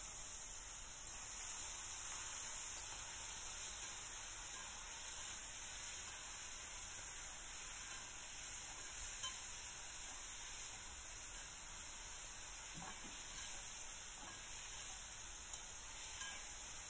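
Low, steady sizzling of chopped, boiled banana stem frying in the oil tempering in a wok as it is stirred with a metal spatula, with a few faint scrapes of the spatula.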